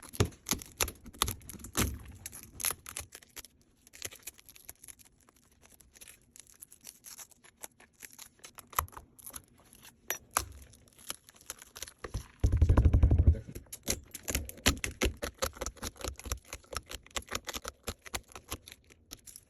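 Laser back-glass removal machine working on a phone's rear glass: scattered sharp clicks and ticks, with a loud low buzz lasting about a second around twelve seconds in.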